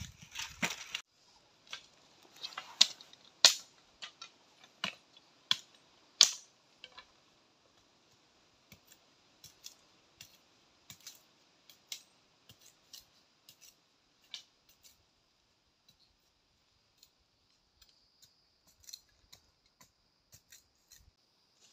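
Dry sticks and twigs snapping and cracking as they are broken and handled by hand: irregular sharp snaps, loudest and most frequent in the first seven seconds, then sparser. A faint steady high tone runs underneath.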